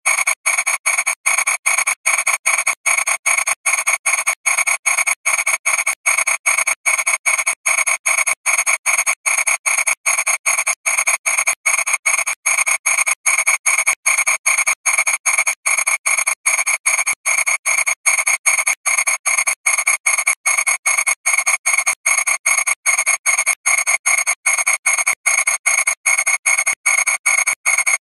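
Audio wrecked by thousands of repeated re-encodings: a harsh, buzzy codec noise with no low end, chopped into rapid even pulses of about two to three a second. No trace of the original sound is left.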